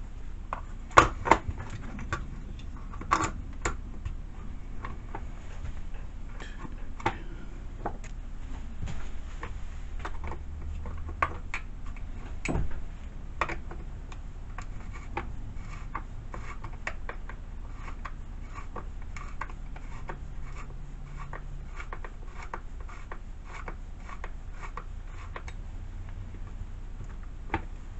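Irregular light clicks, knocks and rubbing of hand work on a chainsaw's bar and chain as they are being fitted, over a steady low hum.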